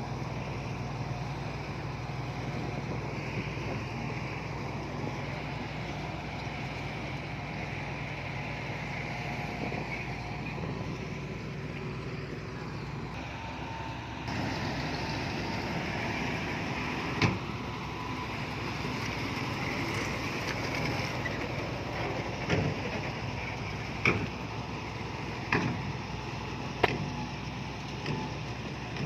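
Heavy diesel earth-moving machinery running steadily, with several sharp knocks spread through the second half.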